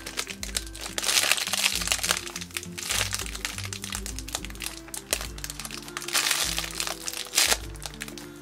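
Clear plastic packaging crinkling and crackling in bursts as a squishy is squeezed and turned inside it by hand, over background music.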